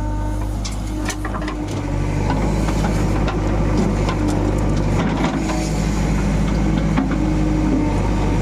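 JCB 3DX backhoe loader's diesel engine running steadily, with scattered metallic clanks and knocks from the machine at work.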